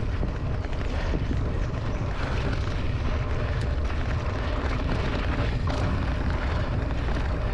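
Steady low rumble of wind buffeting an action camera's microphone while a mountain bike rolls along a grassy dirt track, with tyre and trail noise underneath.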